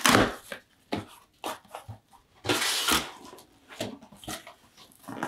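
Cardboard shipping box being opened by hand: packing tape tearing and cardboard flaps scraping and rustling, in several short bursts with the longest about halfway through.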